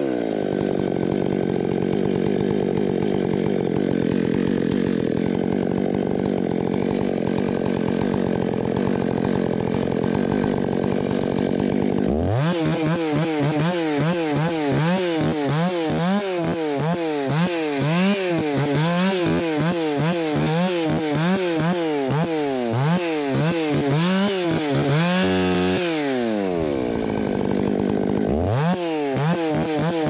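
Stihl MS 661 two-stroke chainsaw running at a steady high speed, cutting, for about the first twelve seconds. It is then revved up and down about once a second as it limbs branches off a felled white fir, dropping briefly to idle near the end before revving again.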